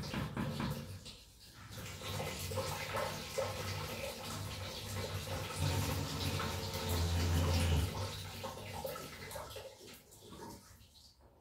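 Water running and splashing at the base of an electric geyser (hot-water cylinder) during an element change. The flow builds up, is loudest for a couple of seconds past the middle, then tapers off near the end.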